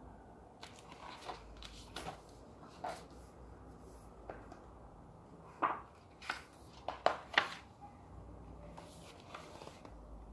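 Handling of a picture book: a string of short taps, clicks and rustles as it is moved and turned. The loudest few come in quick succession between about five and a half and seven and a half seconds in.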